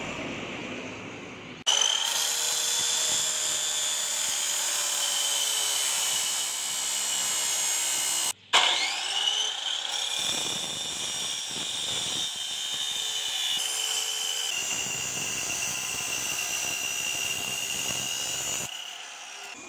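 Electric power tool running on steel with a steady high whine. It cuts out briefly about eight seconds in and spins back up with a rising whine. A few seconds later the pitch steps slightly lower.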